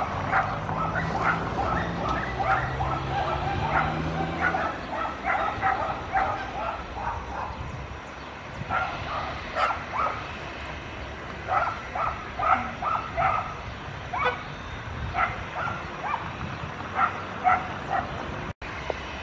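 A dog barking and yipping repeatedly in short, irregular bursts, over a low engine hum that fades out after the first few seconds.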